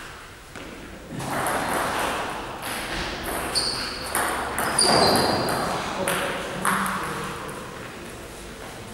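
Celluloid-type table tennis ball clicking off rackets and the table in a quick back-and-forth rally, a sharp tick every fraction of a second.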